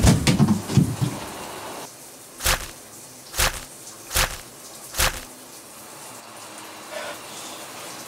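Low scuffling noise that dies away about a second in, then four sharp thuds at an even pace, a little under a second apart, over a faint steady hiss.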